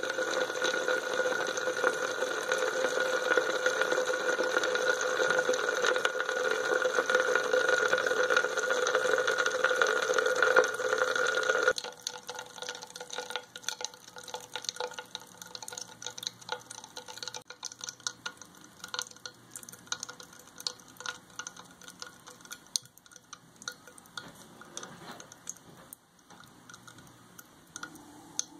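Manganese heptoxide reacting with alcohol in a test tube, giving a dense fizzing crackle that stops abruptly about twelve seconds in. After that come scattered small pops and clicks, the tiny explosions of the heptoxide decomposing.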